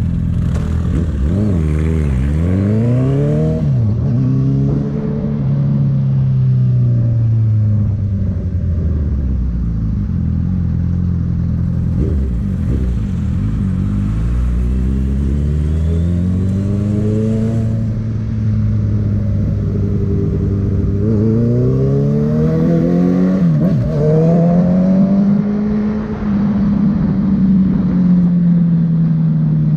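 Honda CB650F's inline four-cylinder engine through an aftermarket Jeskap sport exhaust, pulling away and revving up through the gears several times, the pitch climbing and then dropping at each gear change, with slow falls in between as the throttle is eased off.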